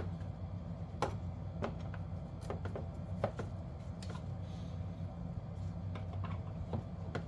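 Light, scattered clicks and taps of plastic HVAC housing parts and damper doors being handled, over a steady low hum.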